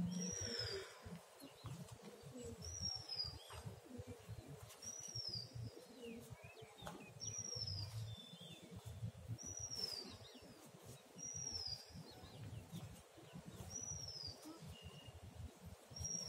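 A bird repeating the same short, high call, a note that slides downward, about every two seconds, eight times in all, over a faint low rumble.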